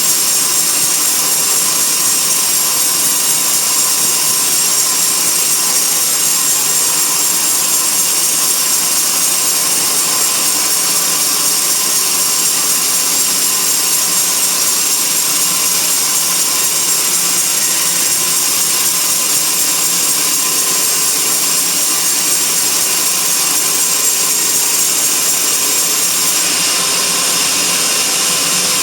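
Band sawmill running steadily as its blade cuts along a teak log, a continuous high-pitched rasp with a steady hum underneath.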